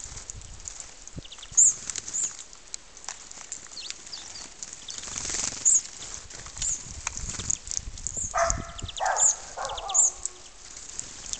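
Birds calling: short, high chirps repeat every second or so, and a lower call with several overtones sounds twice about eight and a half to nine and a half seconds in.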